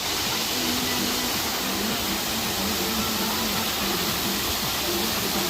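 Waterfall: a steady, full rush of falling water.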